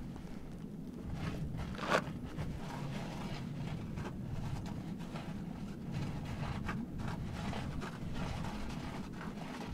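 Hands scraping, scooping and patting dry gravelly soil in small scratchy strokes, with the rustle of a padded jacket sleeve and one sharp crack about two seconds in, over a steady low rumble.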